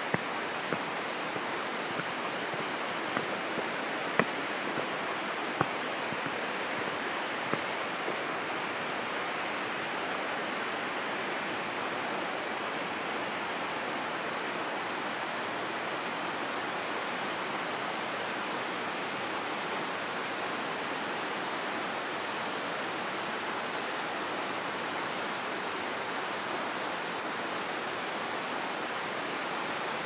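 Steady rush of water, an even hiss that does not change. A few sharp taps sound over it during the first seven seconds or so.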